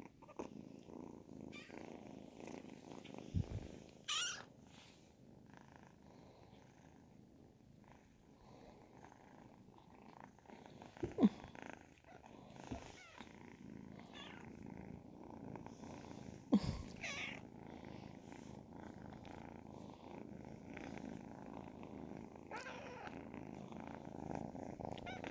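Ragdoll kitten purring steadily, held close to the microphone, with a few brief knocks in between.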